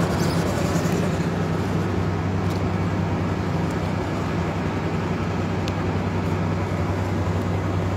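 Truck engine running with a steady low hum, heard from inside the cab.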